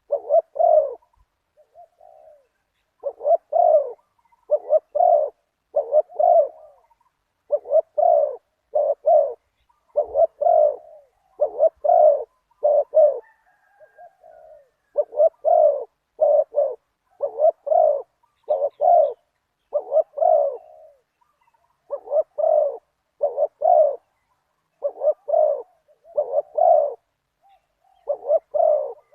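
Spotted doves cooing: short phrases of two or three low coos repeated every second or two, with a few fainter coos between the phrases.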